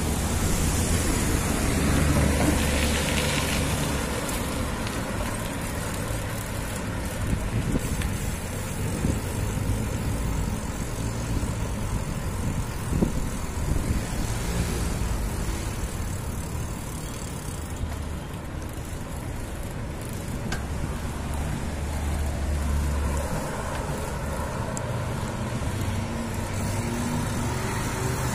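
City street traffic: cars and other motor vehicles going by, with a steady rush of road noise and a low engine rumble that swells and fades. Two short sharp knocks stand out, about seven and thirteen seconds in.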